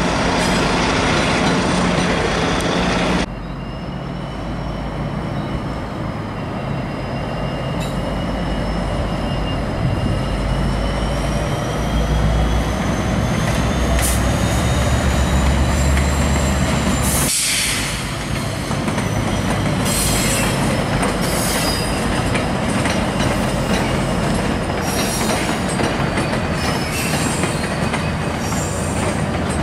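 GO Transit diesel push-pull trains (MP40 and F59PH locomotives with bilevel coaches) moving through the station tracks: a heavy diesel engine rumble under drawn-out, wavering wheel squeal from the wheels grinding on curved track. The sound changes abruptly twice, once early on and again a little past halfway.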